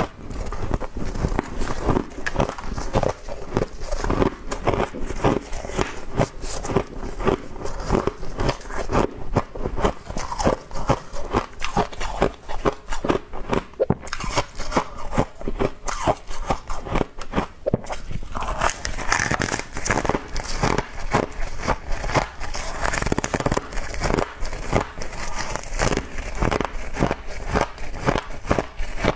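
A person chewing mouthfuls of frost: a steady run of crisp, close crunches, several a second.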